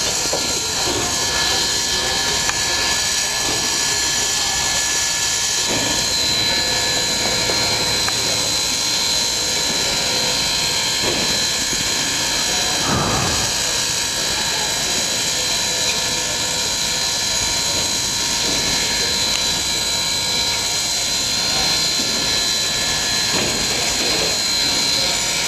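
Steady hiss and rushing noise of a standing steam locomotive slowly turning on a turntable, with a thin high whine held steadily on top.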